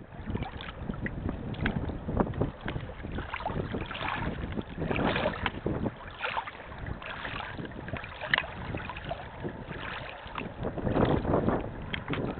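Gusty wind buffeting the microphone, with choppy lake water splashing and lapping against a reedy shore in irregular surges.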